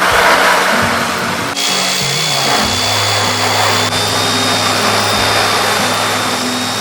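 Power nibbler running and chewing through rusty automotive sheet metal, a harsh steady grinding noise; a steady high whine joins in about a second and a half in.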